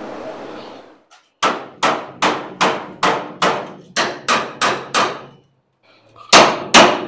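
A hammer striking the steel rear shock crossmember of a 1970 Dodge Challenger, driving it into place between the frame rails for a test fit. About ten quick ringing strikes come at two or three a second, then after a pause two harder blows near the end.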